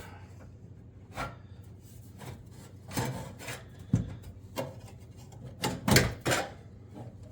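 Scattered light knocks and scraping as stove parts are handled and shifted during disassembly, with the loudest cluster of knocks about six seconds in.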